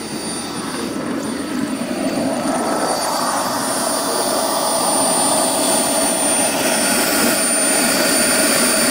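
Model gas turbine of an Avanti S RC jet running at idle while taxiing: a steady high whine over a rushing hiss, growing steadily louder as the jet comes closer.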